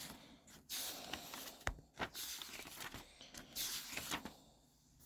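Pages of a paperback book being leafed through: several short rustling sweeps of paper with a few light taps between them.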